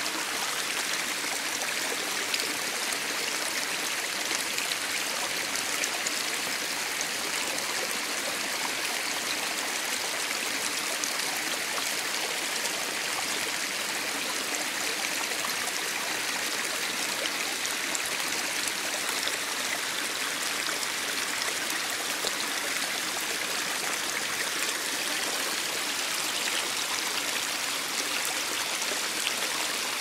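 Small stream running and splashing down a low rocky cascade: a steady, even sound of falling and trickling water.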